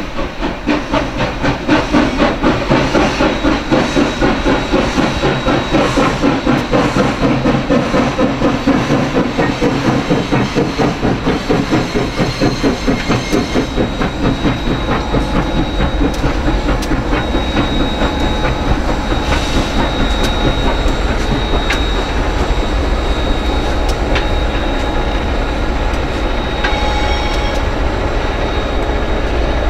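Southern Railway 630, a 2-8-0 steam locomotive, working past with a steady beat of exhaust chuffs, about three a second. Partway through the beat blends into a denser, steadier run of rod and wheel clatter and steam hiss as the engine and train go by.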